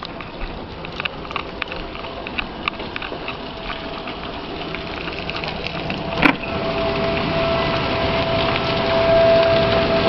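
Rain with scattered sharp taps, then a sharp clack about six seconds in, after which the downpour grows louder. A tornado siren's steady wail rises above the rain near the end.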